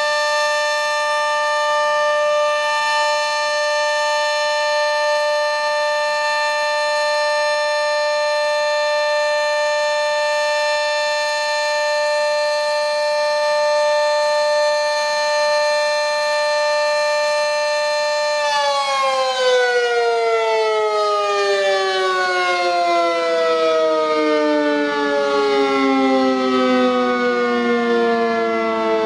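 Sentry 40V2T two-tone outdoor warning siren sounding a steady chord at full pitch during a test. About two-thirds of the way through it is shut off and winds down, its pitch falling steadily.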